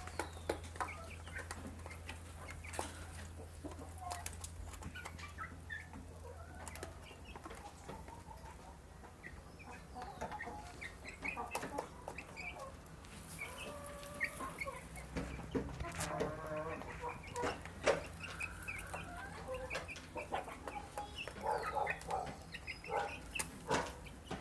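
A small flock of young chickens making many short, scattered calls as they feed, with a few sharp clicks in among them.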